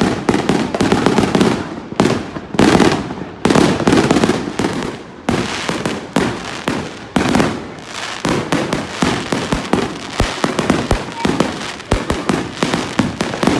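Fireworks going off all around: overlapping bangs and crackling, with a louder burst every second or two.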